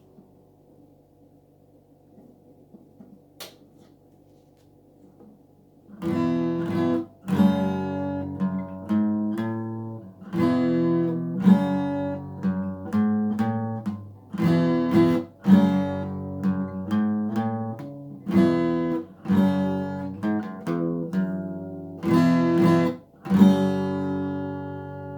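Fender FA-125 laminate-top dreadnought acoustic guitar being strummed, starting about six seconds in: repeated chords struck and left to ring out between strokes.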